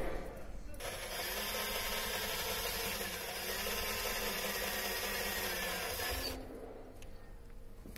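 Cordless drill running, its bit boring into the copper end header of a boiler heat exchanger. After a short knock at the very start, the drill starts about a second in, runs steadily, and stops about six seconds in.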